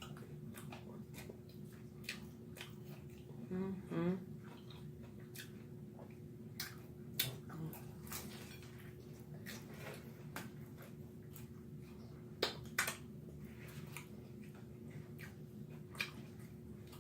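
Eating sounds close to the microphone: irregular crunches, clicks and smacks of chewing, with a short voiced murmur about four seconds in.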